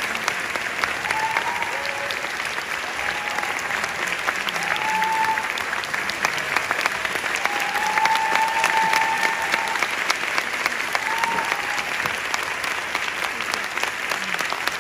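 A theatre audience applauding steadily during a ballet curtain call, with a few brief calls rising above the clapping.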